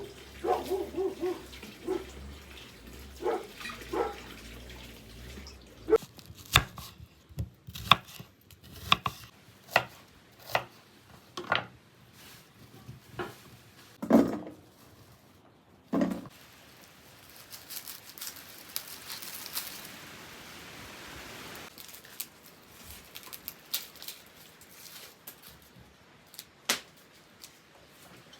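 Irregular sharp knocks and clicks of food preparation work, with about four seconds of steady hiss a little past the middle.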